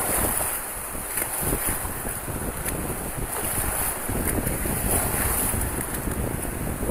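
Shallow beach surf washing and fizzing around the wader, with wind buffeting the phone's microphone; the low wind rumble grows heavier about four seconds in.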